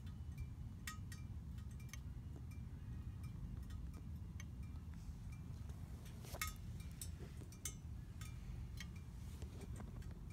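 Light metallic clinks that ring briefly, scattered at irregular intervals with one sharper clink about six seconds in, over a steady low rumble.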